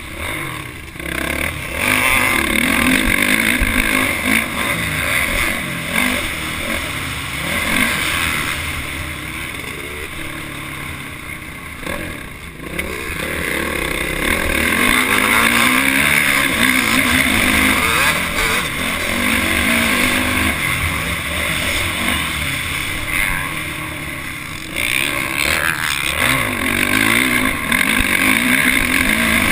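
Motocross bike engine heard on board the bike being ridden, revving up and down as the throttle is worked hard. Long loud stretches of rising engine pitch are broken by short drops where the throttle is shut, about a second in, about twelve seconds in and again near twenty-five seconds.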